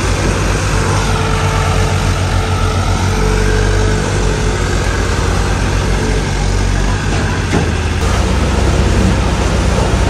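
Diesel engine of an Escort Hydra crane running steadily during the lift of an overturned combine harvester. The sound changes abruptly about eight seconds in.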